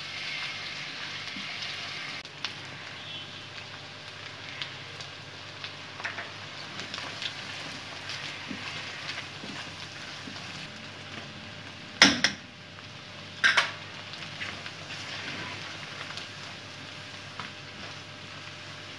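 Onion and sliced boiled eggs frying in hot oil in a wok, a steady sizzling crackle as a silicone spatula stirs them. Past the middle come two sharp knocks about a second and a half apart.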